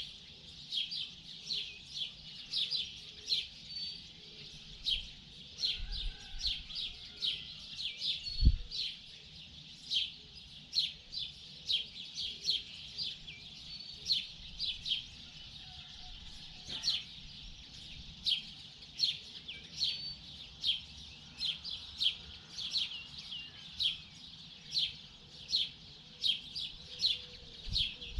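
Several small birds chirping, short high calls repeating quickly and overlapping, with one brief low thump about eight seconds in.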